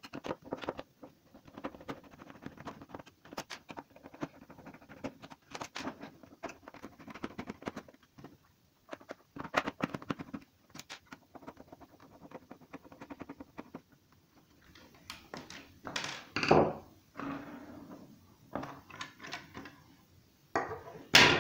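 Screwdriver working screws out of a plastic plug-in surge protector casing: scattered small clicks and scratches of metal on plastic, with a few louder plastic knocks about three-quarters of the way through and near the end as the case is pulled apart.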